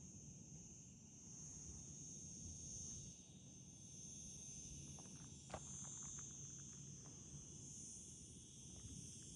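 Faint, steady chorus of insects, a continuous high-pitched shrilling, with a few faint clicks about halfway through.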